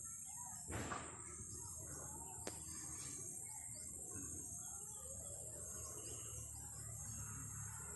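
Birds chirping faintly over a steady high-pitched drone, with a short burst of noise about a second in and a single sharp click about two and a half seconds in.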